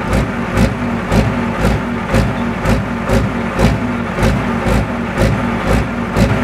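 Music with a steady beat: a deep thump about twice a second, with sharp ticks between the thumps.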